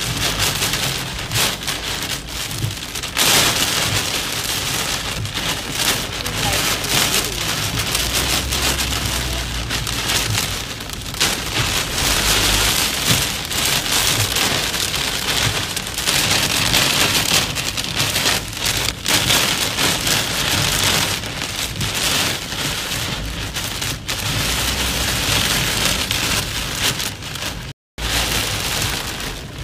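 Heavy rain pelting a car's windshield and roof, heard from inside the moving car, with a brief dropout near the end.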